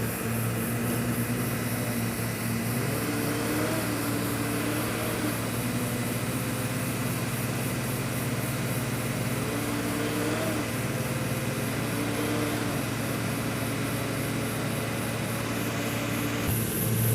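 Excavator's diesel engine running steadily under work, with a whining note that rises and falls several times as the machine works. The sound changes abruptly near the end.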